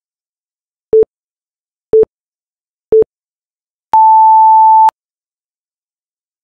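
Interval timer's electronic countdown beeps: three short low beeps a second apart, then one long higher beep of about a second, signalling the start of a 20-second work interval.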